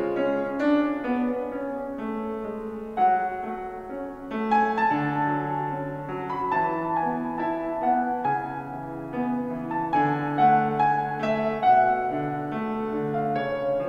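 Solo piano music: a melody played over lower sustained chords, each note struck and left ringing.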